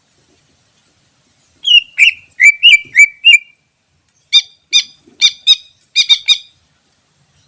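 Cucak ijo (green leafbird) singing: a quick run of about six whistled, swooping notes, a short pause, then a burst of about eight short, sharp repeated notes.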